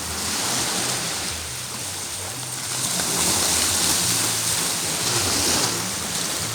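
Sea surf washing onto the beach in swells that rise and fall every few seconds, over a low rumble.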